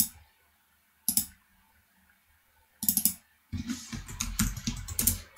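Computer mouse clicking: a single click about a second in, then two quick clicks about three seconds in, followed by fast typing on a computer keyboard from about three and a half seconds in.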